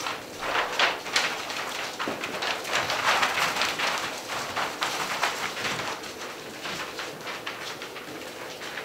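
A litter of five-week-old Gordon Setter puppies scrambling and wrestling: a dense, irregular run of paws and claws scuffing and scratching on a paper-covered floor, with toys dragged and tugged among them.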